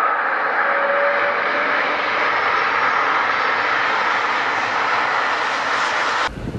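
Toy Airbus A380 airliner playing its built-in jet-engine sound effect: a steady, thin engine roar that cuts off suddenly about six seconds in.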